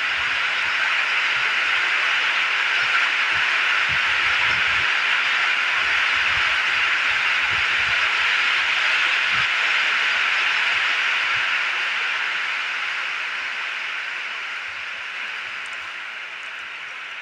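Heavy rain falling on wet concrete and puddles, a steady dense hiss that eases off over the last few seconds.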